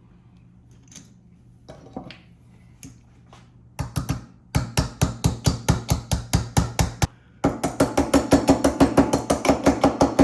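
Rapid, evenly spaced knocks, about four to five a second, starting a few seconds in. They stop briefly, then resume faster and louder with a slight ringing.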